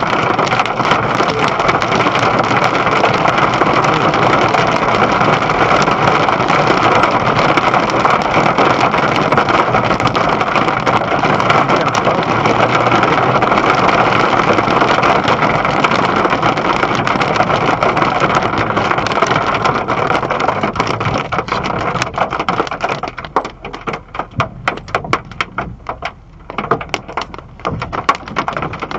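Hail and rain hitting a parked pickup truck: a loud, dense, steady clatter that thins, about three-quarters of the way through, into scattered separate hits as the hail eases off.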